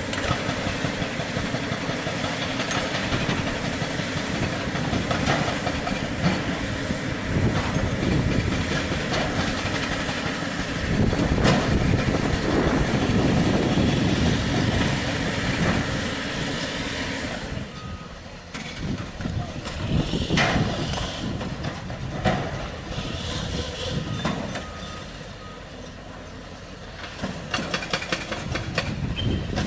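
Heavy construction machinery running: diesel engines with metallic clanks and knocks throughout, louder for a few seconds before the middle and quieter in the last third.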